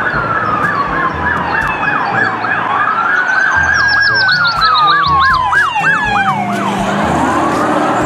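Police car sirens wailing, several at once: one in a fast yelp of about three rises and falls a second, another in long slow sweeps down and back up.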